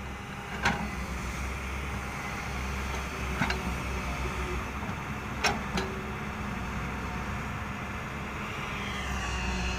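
Excavator's diesel engine running steadily, with three sharp clanks, and picking up slightly near the end.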